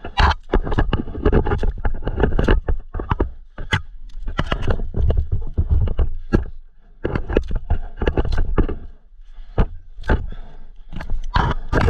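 Irregular knocks, scrapes and rustling as a stick is worked and pulled from under a dirt bike's front wheel in grass and moss, with the engine off.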